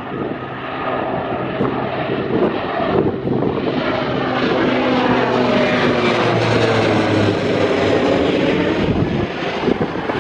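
Bombardier Dash 8 Q400 twin turboprop climbing out after takeoff and passing overhead: a propeller drone with a steady low hum, growing louder as it comes over and easing near the end.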